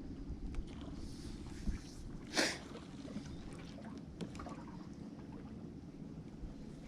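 Steady low hum of a fishing boat's motor, with a few faint clicks and a short hissing whoosh about two and a half seconds in.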